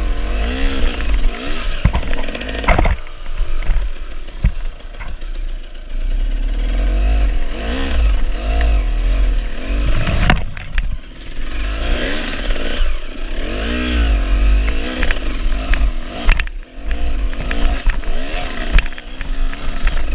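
KTM enduro motorcycle engine revving up and down over and over as it climbs a steep dirt trail, with sharp knocks and clatter from the bike.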